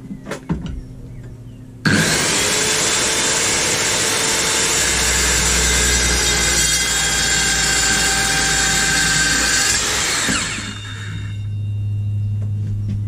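Evolution 165 mm multi-material circular saw with a TCT blade. About two seconds in it starts abruptly and rip-cuts through a plastic sheet along its fence, then winds down near the end. A steady low hum is left after it.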